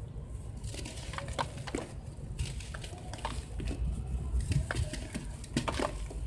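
Chunks of dried sand crushed and broken apart by hand in a plastic basin: scattered sharp cracks and gritty crunches as pieces snap and crumble, with grains and small lumps falling.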